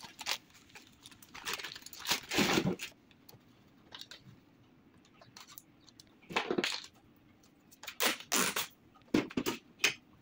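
Irregular bursts of plastic handling noise, scraping, rustling and clicks, as the reassembled laser printer's plastic casing and parts are handled. There are four or five separate bursts with quieter gaps between them.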